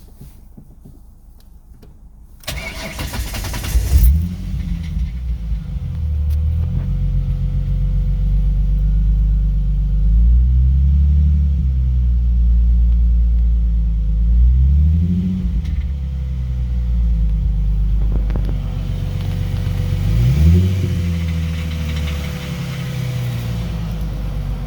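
A 2006 Ford Mustang's engine is started about two and a half seconds in, then idles and is revved in short blips several times, each rising and falling back. The owner hears a rattle from it at start-up, faintly at idle and louder when accelerating, and does not know its cause.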